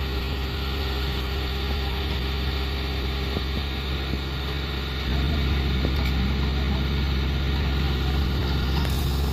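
Heavy eight-wheeled military truck's diesel engine idling steadily, a low even hum that grows a little louder about five seconds in.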